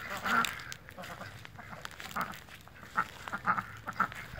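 Domestic ducks on a pond quacking on and off: a run of short quacks that come closer together in the second half.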